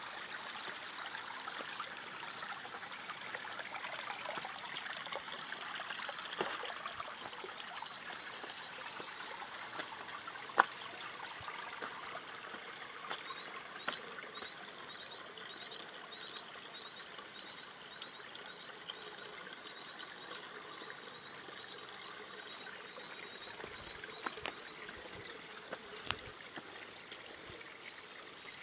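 Small rocky stream trickling and splashing over stones, a steady rush of water. A few sharp clicks stand out, the loudest about ten seconds in, and through the middle stretch there is a faint, fast, high ticking.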